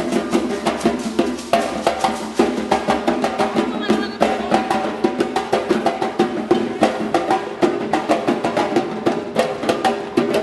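Drum ensemble playing a fast, even percussion rhythm of many strokes a second, with pitched drum tones and sharper, wood-like clicks over it.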